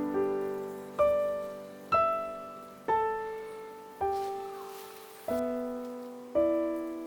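Background piano music: notes or chords struck about once a second, each ringing out and fading before the next.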